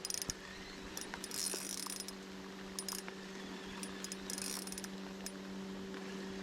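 Small spinning reel being cranked in short bursts, its gears giving a fine rapid clicking each time the handle turns, over a steady low hum.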